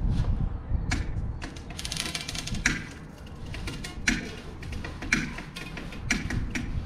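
Sharp, irregular clicks and taps, with a fast run of clicks about two seconds in, as line is drawn off a lever-drag saltwater reel set to full drag; wind rumbles on the microphone underneath.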